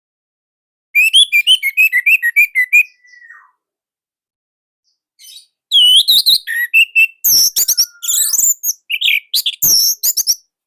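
Orange-headed thrush singing. A quick run of repeated chirping notes comes about a second in and trails off. After a pause, a longer, varied phrase of rapid, higher notes follows.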